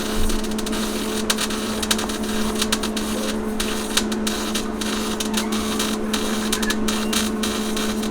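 MIG welder arc crackling steadily while a sheet-steel wheel-well patch is welded in, with a few brief breaks in the bead. A steady hum runs underneath.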